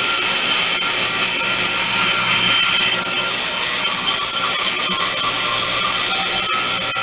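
Low-air-pressure warning buzzer of a truck air brake system sounding steadily, over a steady hiss of shop air charging the reservoirs. The buzzer means the system's air pressure is still below the warning level.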